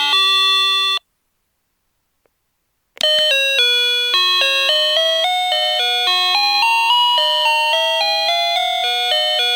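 Daiso call chime playing 8-bit electronic melodies. One tune ends on a held note about a second in. After two seconds of silence, the switch clicks and the next tune starts, a quick run of bright beeping notes.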